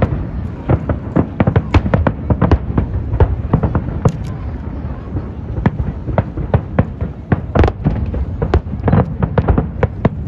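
Aerial fireworks going off in a dense, irregular barrage: several sharp bangs a second, overlapping one another over a continuous low rumble.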